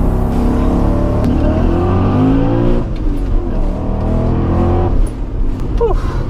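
Supercharged BMW M5 V8 under hard acceleration on track: revs climb, break off briefly about three seconds in as it shifts, climb again, and fall away as the throttle is lifted about five seconds in.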